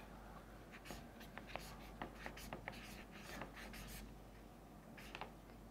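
Felt-tip marker writing on flip-chart paper: a faint, quick run of short strokes, a pause of about a second, then a few more strokes.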